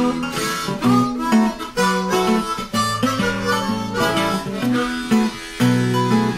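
Music: harmonica playing held notes over strummed acoustic guitar.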